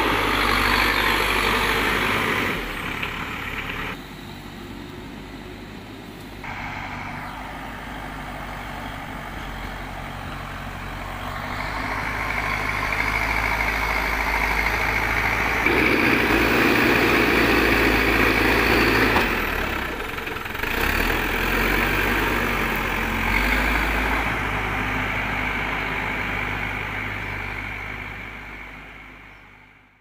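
A Terex TLB 740S backhoe loader's diesel engine running under load as it dumps soil and pushes dirt with its front bucket. The engine note swells and drops, the sound changes abruptly a few times, and it fades out near the end.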